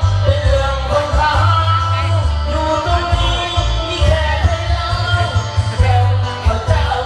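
Loud dance music with a singing voice over a heavy, pulsing bass beat.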